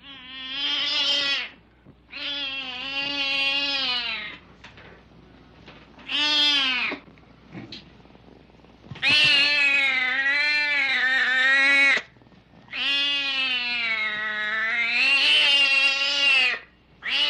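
Domestic cat yowling: five long, drawn-out, wavering calls with short pauses between them, the longest lasting three to four seconds, and a sixth beginning near the end.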